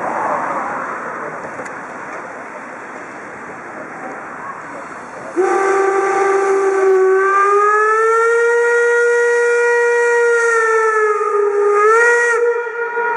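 Steam whistle of the DR Class 18 201 steam locomotive blowing one long blast of about seven seconds. It starts suddenly after a stretch of crowd noise, its pitch slides up a little after a second and a half, then dips and jumps up again just before it cuts off.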